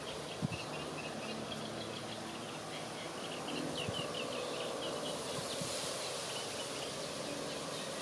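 Insects chirping in quick, high-pitched runs over a faint steady outdoor hiss.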